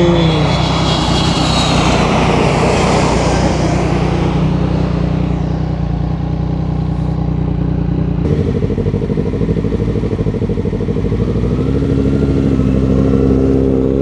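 Yamaha MT-09's three-cylinder engine through a Yoshimura R55 slip-on exhaust, running steadily under the rider. A rush of noise sits over it for the first few seconds, and the engine note changes pitch about eight seconds in.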